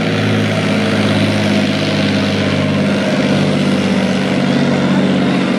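Main battle tank's engine running steadily under heavy load as it drags a pulling sled along a dirt track. A thin high whine joins near the end.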